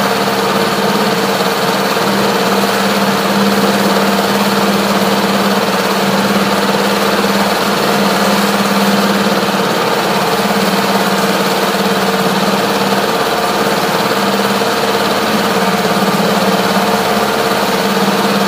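Hidea HDF6HS four-stroke 6 hp outboard motor running steadily at an even pitch, its fuel supply cut off so that it burns the petrol left in the carburettor before storage.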